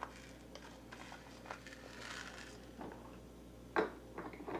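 Quiet handling of plastic toy dishes: light clicks and scrapes, a fork working through rice in a small bowl, a soft rustle around two seconds in and a sharper knock near the end.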